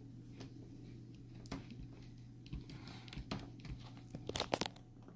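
Plastic screen bezel of a Toshiba Satellite laptop being pried at by hand: scattered creaks and crackles, then a quick run of sharp plastic clicks about four and a half seconds in. The bezel is stuck because a screw is still holding it.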